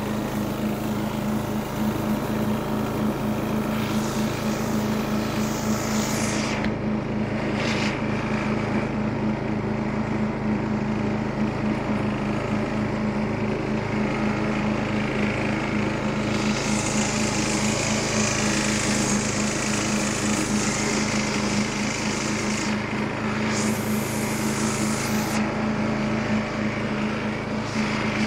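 Riding lawn mower's engine running steadily at constant speed as the mower drives over the lawn, with a higher hiss that fades and returns a few times.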